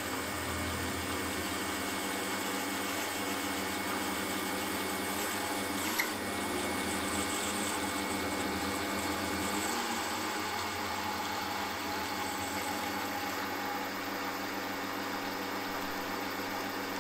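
Milling machine running with its end mill cutting a metal block: a steady motor hum with several steady tones over a constant hiss of cutting, and one short click about six seconds in.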